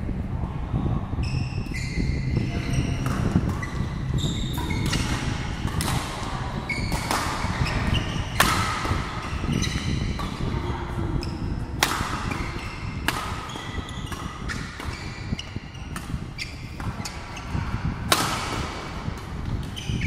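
Badminton rackets striking a shuttlecock in sharp, irregular cracks through doubles rallies, with court shoes squeaking in short high chirps. A steady low rumble runs underneath.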